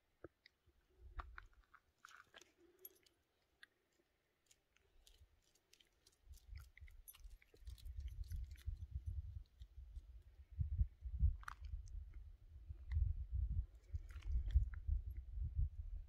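Footsteps crunching and scraping over rocky, gravelly ground, with scattered sharp clicks of grit and stones. From about six seconds in, a low, fluttering rumble on the microphone joins them and becomes the loudest sound.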